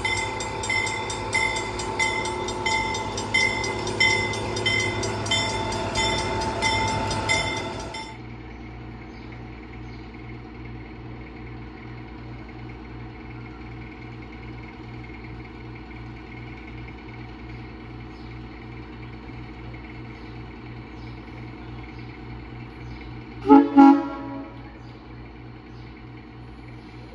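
For about the first eight seconds a loud ringing sound is struck in even pulses about twice a second, then cuts off abruptly. After that Huckleberry Railroad diesel locomotive No. 12 idles with a steady low throb, and about 23 seconds in its horn gives two short blasts.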